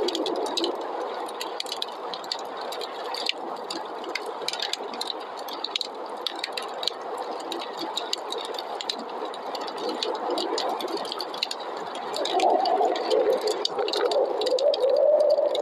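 Wood fire crackling with many small sharp pops over the steady rush of snowstorm wind. About three-quarters of the way through, the wind grows louder into a wavering whistle that rises and falls in pitch.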